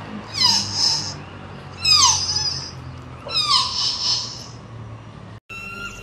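Deer fawn bleating: three high, falling calls about a second and a half apart.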